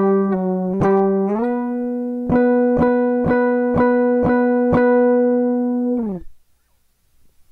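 Guitar playing a solo phrase: one note picked again and again about twice a second, sliding up in pitch about a second and a half in, then stopping about six seconds in.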